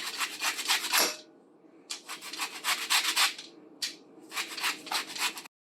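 A lemon's peel being zested on a fine grater: quick, scratchy back-and-forth strokes in three runs with short pauses between them, cutting off suddenly near the end.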